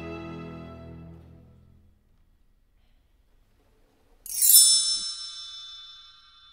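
String background music fading out over the first two seconds. Then, after a pause, a bright chime sounds about four seconds in, sweeping quickly downward and ringing on in sustained tones that fade: a logo sting.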